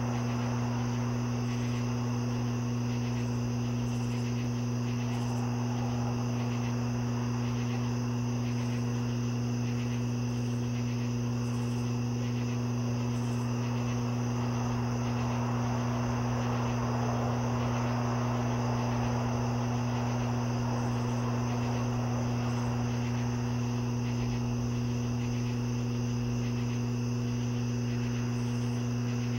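A steady chorus of night insects trilling, over a steady low hum.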